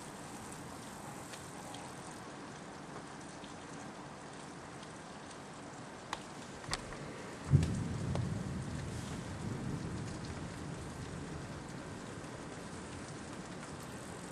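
Steady rain, then two sharp ticks about six seconds in, followed by a sudden loud thunderclap that rolls on as a low rumble, fading over three or four seconds.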